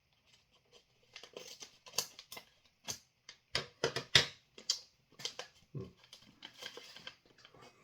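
Crinkling and crackling from handling a freeze-dried ice cream sandwich and its packaging, in short irregular bursts with several sharp snaps, the loudest about four seconds in.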